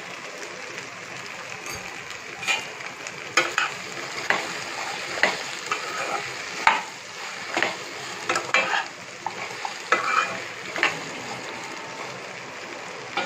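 Cubes of colocasia (taro) frying in oil and spice masala in a nonstick pan, with no water added, sizzling steadily. A metal spatula stirs and scrapes through them in strokes about once a second.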